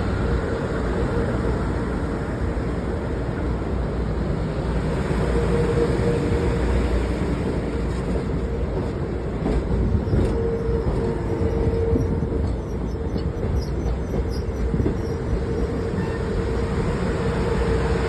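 Metro-North electric commuter train at a station, running with a steady low rumble and a steady mid-pitched hum, and a few faint clicks about halfway through.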